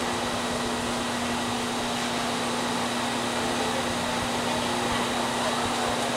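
Steady whir of a large fan with a constant low hum under it, unchanging throughout.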